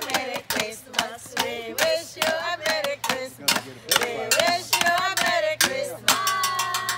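A song with a woman's voice singing over a sharp, steady beat.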